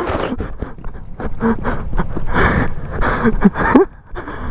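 A man panting hard and gasping for breath while running, with quick footsteps and short sharp knocks.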